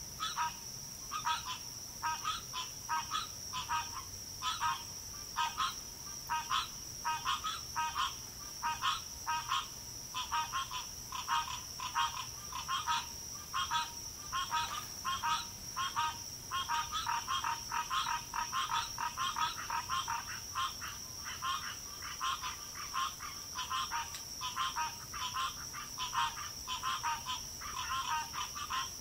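A chorus of frogs: short calls repeated about one to two times a second from several animals, overlapping, over a steady high-pitched tone.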